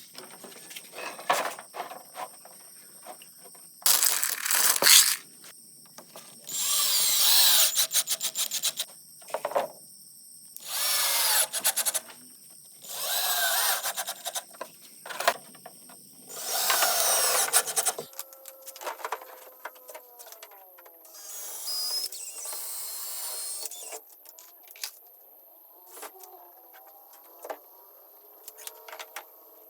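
Power drill run in a series of short bursts, about five loud ones lasting a second or two each, its motor pitch sliding as it speeds up and slows, then a couple of softer bursts later on, with small clicks and knocks between.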